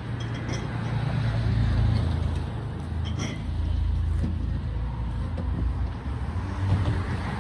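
Low rumble of street traffic going by, swelling and easing several times.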